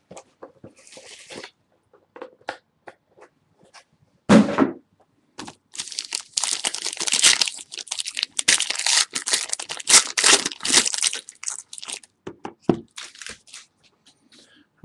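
Foil trading-card pack being torn open and its wrapper crinkled by hand: scattered clicks, a sharp crack about four seconds in, then a long run of dense crinkling.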